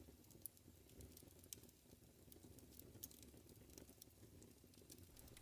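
Near silence: faint room tone with a low hum and a few faint, scattered clicks.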